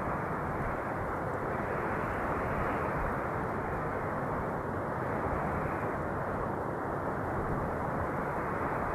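Steady, muffled rushing of wind, swelling and easing gently every few seconds, with no sharp gusts or whistling.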